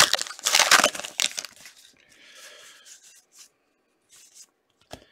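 Hockey card pack wrapper being torn open, crinkling loudly for about a second and a half, then faint rustling as the cards are pulled out and handled.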